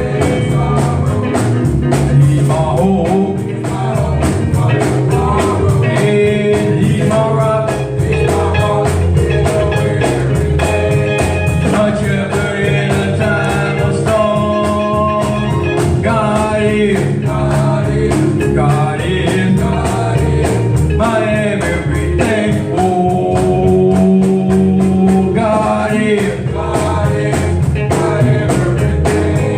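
A gospel song: a singer over a band, with a steady drum beat.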